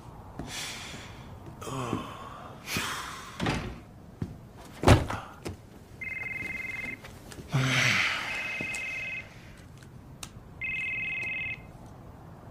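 A phone ringing three times with a steady two-tone electronic ring, each ring about a second long and about two seconds apart. Before the rings, some rustling and one sharp thump about five seconds in, the loudest sound.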